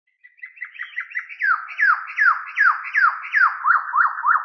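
A run of whistle-like tones: quick short chirps at first, then steady downward swoops about two and a half a second, turning to short up-and-down notes near the end.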